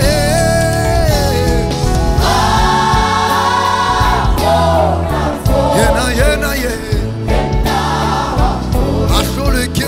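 Live gospel music: a choir and lead voices singing over a band of drums, bass and keyboards. The choir holds a chord for about two seconds near the middle, followed by quick sung runs.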